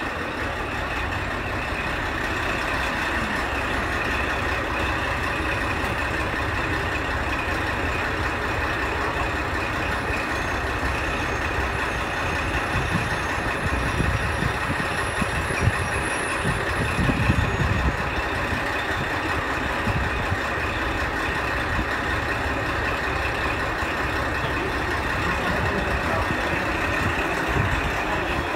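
Diesel railcar idling at the platform: a steady low engine rumble that swells louder for a few seconds around the middle.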